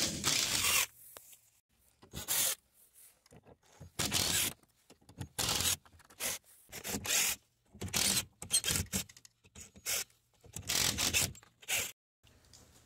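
Cordless drill backing screws out of an OSB wooden crate: a series of short whirring, rasping bursts, each under a second and one to two seconds apart.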